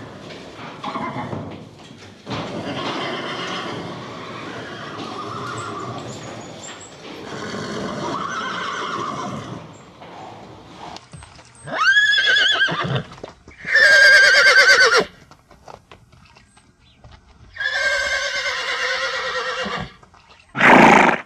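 Horse neighing: softer, lower sounds at first, then three loud whinnies in the second half, each a second or two long with a quavering pitch. A short loud sound follows just before the end.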